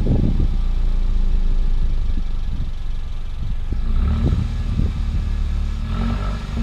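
Exhaust of a stationary Mercedes CLA heard at the tailpipe, the engine idling with a low steady rumble and several quick throttle blips that rise briefly in pitch and fall back.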